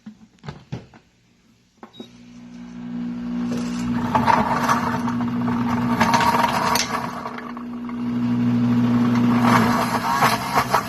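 Pampered Chef Deluxe Cooking Blender running, its motor churning thick ice cream and peanut butter cups while a tamper pushes the mix down onto the blades. A few light knocks come first, then the motor builds up about two seconds in and runs steadily at a loud level.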